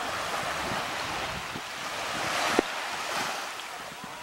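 Wind buffeting the microphone over the wash of waves, with one sharp knock about two and a half seconds in.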